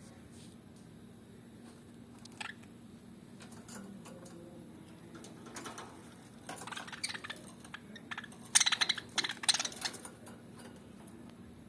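Fischer's lovebirds chirping: a single short chirp, a run of calls a little past the middle, then two loud, rapid, high chattering trills near the end.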